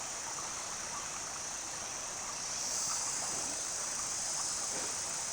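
Steady rush of flowing water, with a high hiss that swells a little about halfway through.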